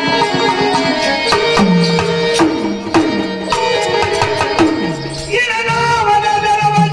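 Indian folk devotional ensemble music: held sustained notes over a hand drum whose deep strokes slide down in pitch about twice a second, and a new wavering melody line comes in about five and a half seconds in.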